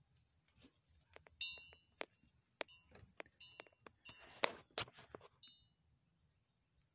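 Wind chime tinkling: a run of light metallic strikes, each ringing briefly at a few fixed high pitches, dying away about five and a half seconds in.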